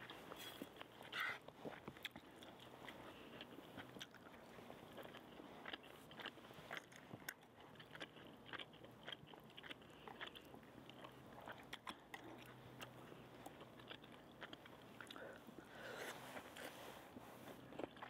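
Faint eating sounds: chewing, with small clicks and scrapes of chopsticks picking noodles out of a frying pan. The eating sounds grow a little louder near the end.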